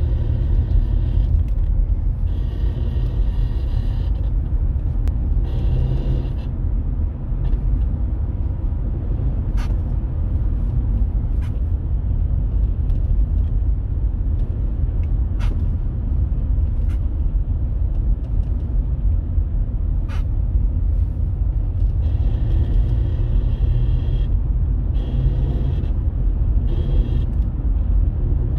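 Steady low rumble of a car heard from inside the cabin, engine and road noise, with patches of higher hiss that come and go and a few faint clicks.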